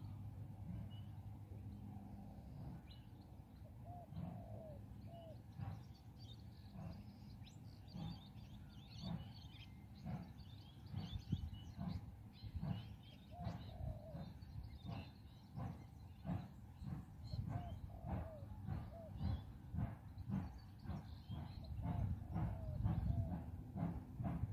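Distant steam locomotive exhaust beats, slow and even, then quickening and growing louder as the engine pulls away from a stop and works up a grade. Birds chirp and call over it.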